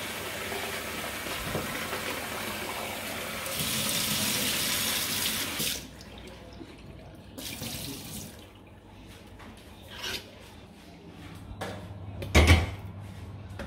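Kitchen tap running into a sink, flowing harder for its last couple of seconds and then shut off suddenly about six seconds in. After that come scattered light clinks and knocks, with one loud knock near the end.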